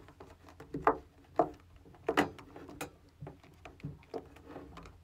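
Hands handling a plastic takeaway soup container and its lid: irregular clicks, taps and light knocks of plastic while someone works out how to open it.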